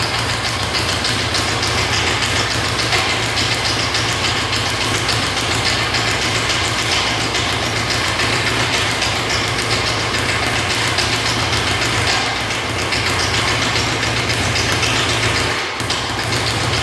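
Speed bag being punched in a fast, unbroken rhythm, rattling against its rebound platform like a machine gun, with a brief break near the end before it picks up again.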